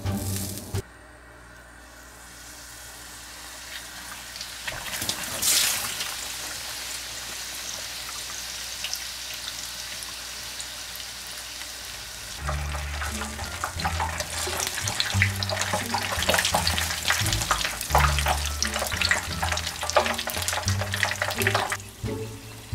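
Hot oil sizzling as a batter-coated stack of bulgogi burgers deep-fries in a pan, the sizzle growing louder with dense crackling in the second half. Background music with a bass beat comes in about halfway.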